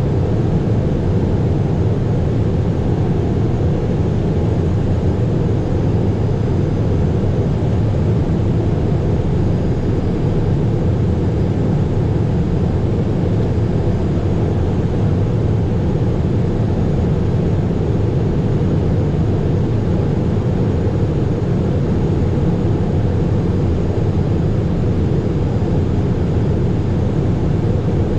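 Steady in-flight cockpit noise of a Cessna Citation Mustang light jet: an even, low rush of airflow and its twin turbofan engines, unchanging throughout.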